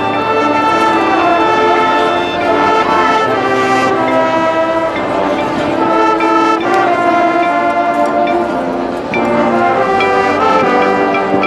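Marching band brass section playing loud sustained chords that shift every second or so, with low brass underneath.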